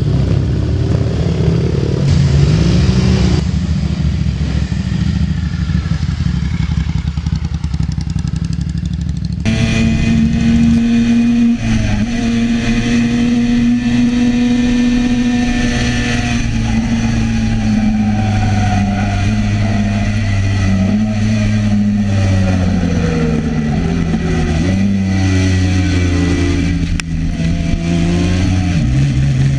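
Classic racing motorcycle engines. First a bike runs through the paddock; then, from about nine seconds in, an on-board recording of a classic race bike at speed on a road circuit. Its engine note holds high, then falls and rises several times through gear changes, with a sharp drop near the end.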